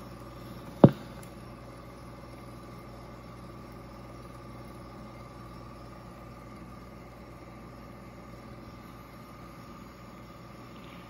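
Rheem Califone 8030T reel-to-reel tape recorder running with no recording yet coming through: a steady hum and hiss from the transport and amplifier, with one sharp mechanical click about a second in.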